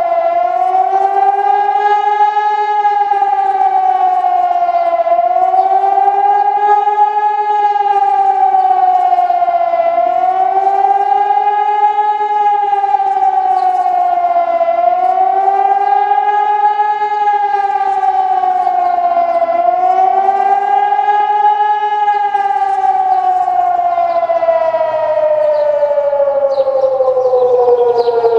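Hörmann ECN 2400 electronic civil-defence siren sounding its warning wail during a siren test, the pitch rising and falling about every five seconds. Near the end it breaks into one long, steady fall in pitch.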